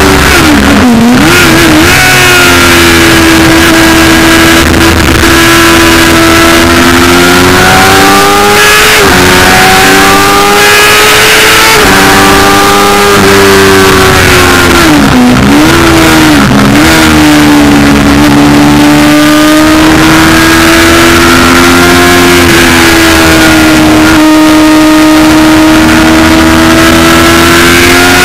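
Racing sidecar outfit's engine heard onboard at racing speed, very loud and close: its pitch climbs under acceleration, drops back slightly at upshifts about 9 and 12 seconds in, and dips and wobbles under braking and downshifting around a second in and again around 15 to 16 seconds in. A steady hiss of wind rush lies under the engine.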